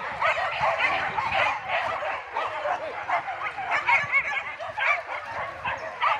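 A large pack of hunting dogs barking and yelping all at once, a dense unbroken chorus of many overlapping short calls. The dogs are held on leashes and excited before a wild boar hunt.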